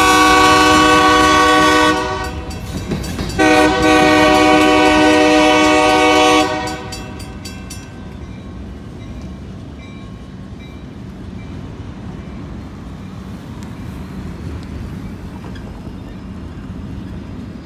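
Freight train's locomotive horn sounding two long blasts, the second a little longer, over the rumble and clatter of covered hopper cars rolling over the rails. The horn stops about six seconds in, and the wheel rumble fades as the last cars clear the crossing.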